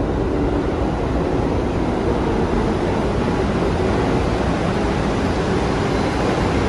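New York City subway train running through the underground station on a far track: a loud, steady rumble of wheels on rail that grows a little toward the end.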